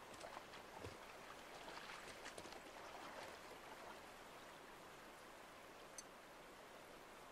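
Near silence: a faint steady hiss, with a few soft ticks in the first three seconds.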